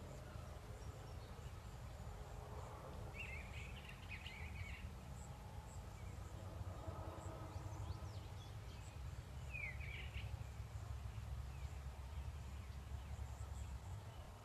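Outdoor ambience of a steady low rumble with faint bird chirps: a short cluster about three to five seconds in and another about ten seconds in.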